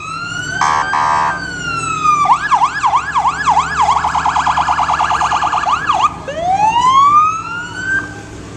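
Fire engine's siren cycling through its tones: a rising and falling wail, then a yelp of quick sweeps about two or three a second, then a much faster warble, then the wail rising again. Two short horn blasts sound about a second in.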